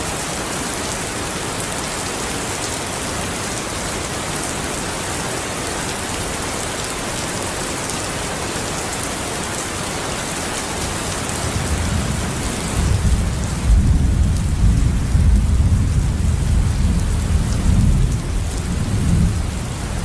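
Steady rain with an even hiss. About twelve seconds in, a long, uneven low rumble of thunder comes up and becomes the loudest sound.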